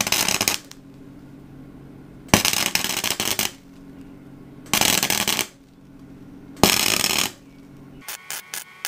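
Harbor Freight 90 amp flux-core wire welder striking four short tack welds, each a burst of crackling arc lasting well under a second, with a steady hum between them. The welder is turned down to its lowest setting with a slow wire feed, tacking thin pipe without burning through. Near the end a quick run of sharp clicks begins.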